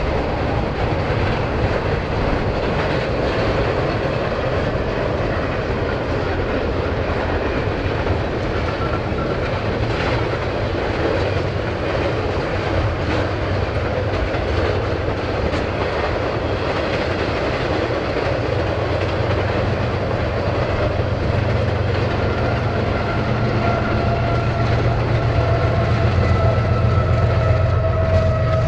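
Double-stack container freight train rolling past: a steady rumble of wheels on rail with rhythmic clicking over the rail joints. Near the end a locomotive at the rear of the train comes by, adding a deeper diesel engine drone and a steady whine, and the sound gets a little louder.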